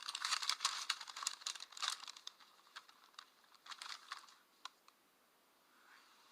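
A quick run of sharp clicks and taps, dense for about two seconds, then a few scattered clicks that stop a little after the middle.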